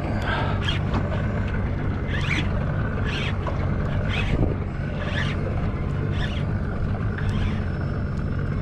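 Steady low hum of an idling boat motor with wind on the microphone, broken by short swishing noises about once a second.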